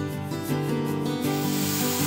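Background music throughout. About a second and a half in, green moong dal dosa batter poured onto the hot tawa starts to sizzle, a steady hiss that continues.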